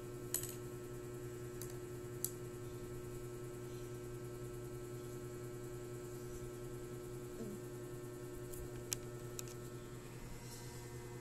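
Steady low electrical hum with a few light clicks scattered through it, three of them close together near the end.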